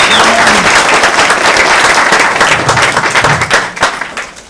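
Audience applauding, the clapping fading out near the end.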